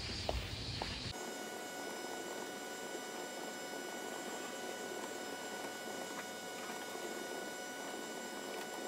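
Footsteps on pavement for about the first second, then a steady electrical hum with several fixed whining tones, with a few faint clicks of keyboard typing.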